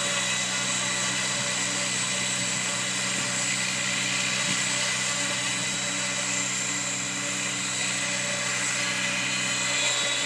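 Xcell Whiplash radio-controlled helicopter running, its rotors spinning while it hovers a few centimetres off the ground: a steady high-pitched whine over the rotor hum.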